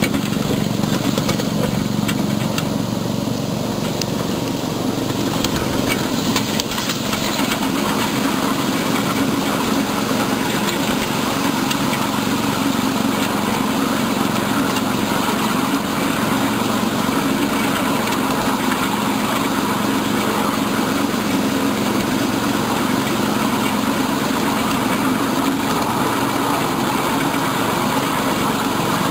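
Ride-on miniature train running along the track: a steady mechanical drone from the locomotive, with its cars' wheels rolling over the rails.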